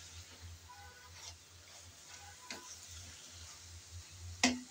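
A wooden spatula stirring and scraping chopped banana stem and shrimp through a thick spice mix in a frying pan, with light sizzling while the mix is braised down. The spatula gives a few soft knocks against the pan and a louder one near the end.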